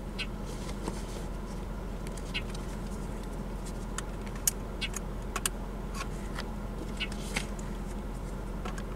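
Outdoor field ambience: a steady low hum with a scattered handful of short, sharp ticks.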